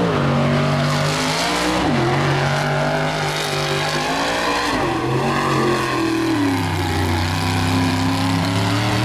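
Mud truck's big engine revving hard, its pitch sagging and climbing again several times as the throttle is worked, with a wash of noise above the engine note.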